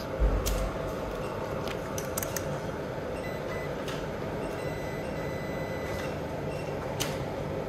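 Steady workbench room noise with a low thump near the start and a few light clicks, made while a power-supply MOSFET is being checked with multimeter probes.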